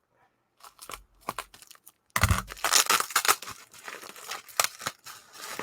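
Packing tape being ripped and bubble wrap crinkling as a tightly wrapped parcel is unwrapped, starting with a few scattered crackles and becoming a dense run of tearing and crinkling about two seconds in.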